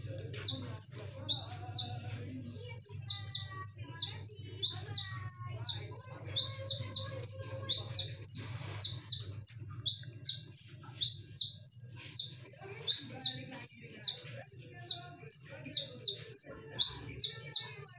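Kolibri ninja sunbird calling over and over in sharp, loud, high notes, each falling quickly in pitch, given in quick pairs about two to three times a second. A steady low hum runs underneath.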